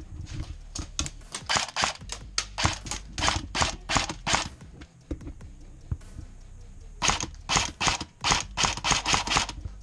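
Airsoft guns firing rapid strings of sharp shots, about four or five a second, with a pause of about two seconds in the middle.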